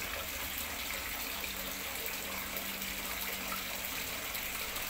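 Steady background hiss with a faint low hum, unchanging throughout; the knife going through the soft cake makes no distinct sound.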